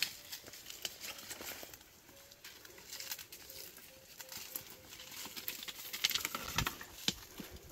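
Rustling leaves, crackling twigs and footsteps on dry ground as people move through scrub and handle branches, a run of short irregular cracks and scuffs that is loudest near the end. A faint pulsing tone sounds in the middle.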